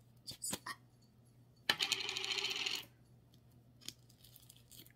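Plastic slime tub being handled and opened: a few light clicks, then about a second of crackling plastic.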